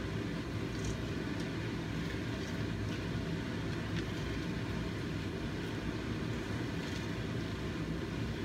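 A steady low rumble, with a few faint scrapes and clicks from a spatula stirring peanuts into thick purple sweet-potato dodol in a nonstick pan.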